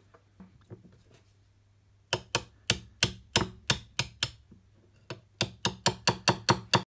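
Hammer tapping a steel rod into an aluminium mounting plate: two runs of sharp taps, the first at about three a second, then after a short pause a quicker run of about ten.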